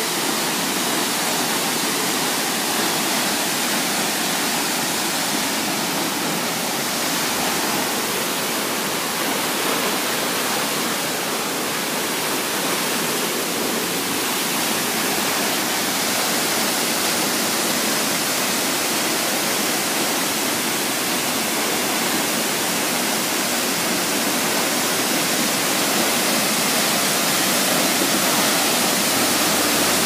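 A tall waterfall pouring onto rocks: a steady rushing of falling water that grows slightly louder towards the end.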